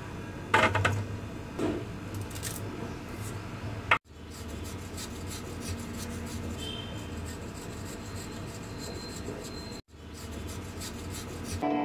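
A kitchen knife scraping along moringa drumstick pods, peeling off the stringy skin, with a few sharp taps of the blade in the first couple of seconds. A plucked-string tune comes in at the very end.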